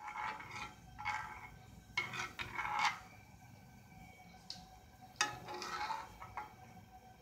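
Metal spoon scraping and stirring beaten eggs in a nonstick frying pan, in several short strokes with pauses between them.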